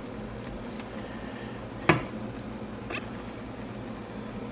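Chicken and beef cubes frying in their juices in a nonstick pan: a steady sizzle over a low hum. A plastic spatula knocks against the pan twice, sharply about two seconds in and more lightly a second later.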